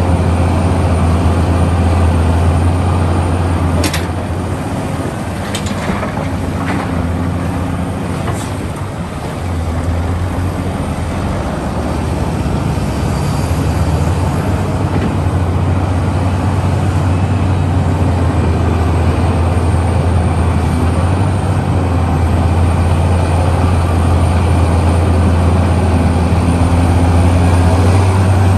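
Large excavator's diesel engine running with a deep steady drone. A few short metal clanks come about four to eight seconds in, while the engine eases off, then it builds back up toward the end.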